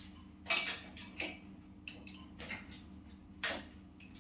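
A cloth wiping an electric ham slicer and hands handling it: about four short rubbing scuffs, over a faint steady low hum.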